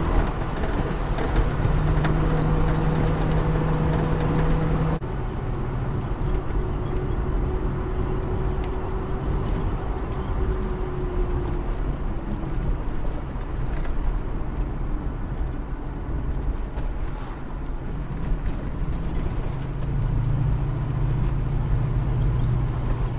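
Car engine and road noise heard from inside the cabin while driving, a steady drone. The sound changes suddenly about five seconds in, and the engine note rises again near the end.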